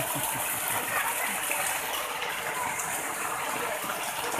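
Heavy rain and runoff water running across a flooded street, a steady hiss with no breaks.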